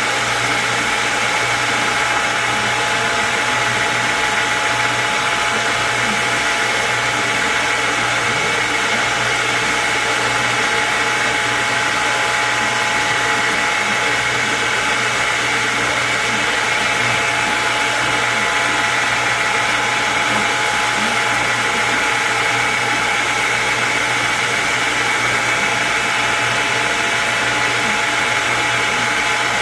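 An electric machine running with a steady, unchanging whir and hum, holding the same pitch throughout, as in a blacksmith's workshop.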